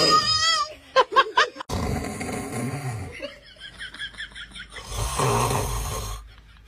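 A man snoring: two long, rasping snores, the first about two seconds in and the second about five seconds in. Short, high, wavering sounds come between them, at the start and again in the middle.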